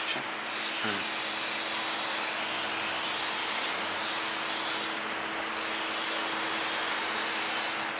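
Handheld air-powered spray gun hissing steadily as it sprays cleaner onto a greasy engine block, the hiss cutting out briefly twice when the trigger is let go.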